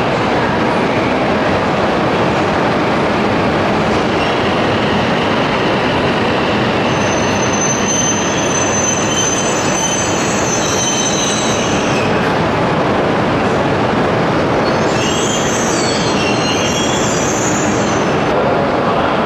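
E5/E6 coupled Shinkansen (Hayabusa + Komachi) moving along the platform with a steady rumble. Its wheels squeal in high tones about a third of the way in and again near the end.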